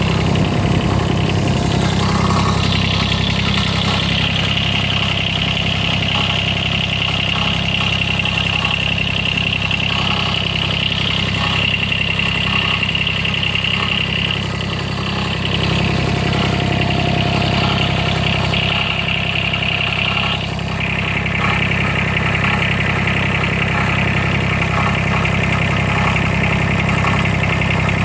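John Deere 332's Yanmar three-cylinder diesel running at a steady idle, with a rattling and grinding noise whose source the owner cannot find. A high grinding tone comes in a couple of seconds in, drops out about halfway through and returns some seconds later.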